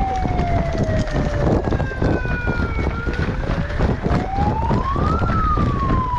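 A wailing siren, its pitch slowly falling, then rising for about two seconds and falling again, over the steady knocking and rustling of someone moving with gear and wind on the microphone.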